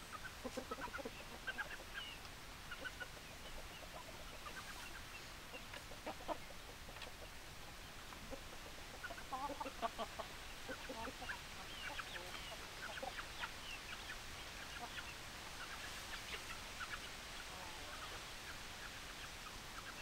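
Chickens clucking in short, scattered calls, with a busier run of clucks about halfway through.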